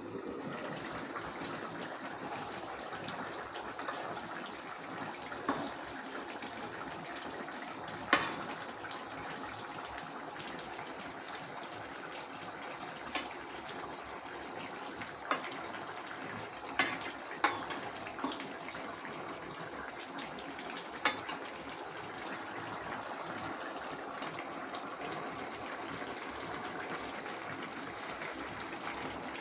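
A pot of curry cooking on a gas stove, giving a steady hissing, bubbling noise. Several sharp clinks of a metal spatula against the pot are scattered through it.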